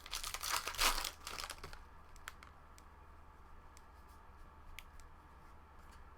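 Trading-card pack wrapper being torn open and crinkled for about the first two seconds, followed by a few faint light ticks of cards being handled.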